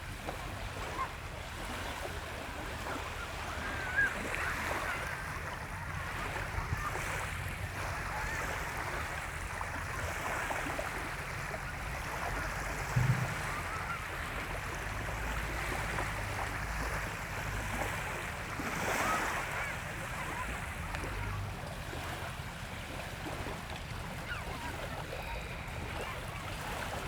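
Sea surf washing onto a beach in a steady hiss, with a low rumble of wind on the microphone.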